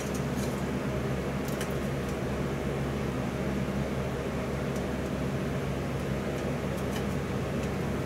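A steady mechanical hum with hiss, from a machine running, with a few faint light ticks scattered through it.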